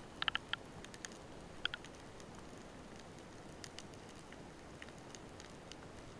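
Underwater sound picked up by an underwater camera: a quick run of four sharp clicks, two more a little later, then scattered fainter clicks and crackles over a steady hiss.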